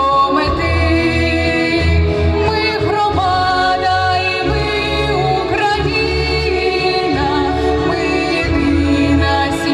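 Music: a woman's lead voice sings a community anthem to instrumental backing with a pulsing bass line.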